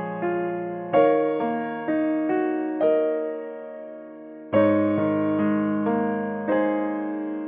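Background music: a slow electric piano melody, notes struck every half second or so and left to ring and fade.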